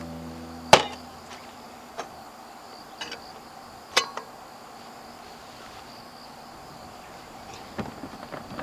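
Insects chirring steadily in the background. A few sharp clicks are heard about a second in and again at intervals, and a run of knocks comes near the end.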